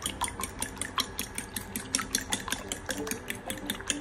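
Metal fork beating raw egg whites in a ceramic bowl, clinking quickly and evenly against the bowl, about five strikes a second.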